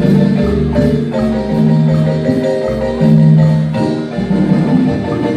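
Guatemalan marimba playing a melody in rolled, fluttering notes over low bass notes held in long blocks.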